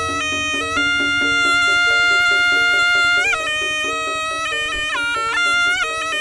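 Jaranan gamelan music: a slompret, the shrill double-reed shawm of the ensemble, holds long melody notes that bend in pitch, over a quick repeating two-note figure on gong-chimes and steady drumming.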